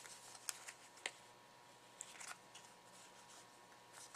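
Cardstock pieces handled and pressed together by hand: a few faint clicks and rustles of paper, otherwise near silence.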